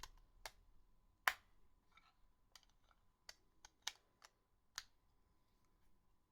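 Keypad buttons of an HTC Faraday (Cingular 2125) phone being pressed while stepping through its menus: about nine sharp clicks at an uneven pace, the loudest a little over a second in.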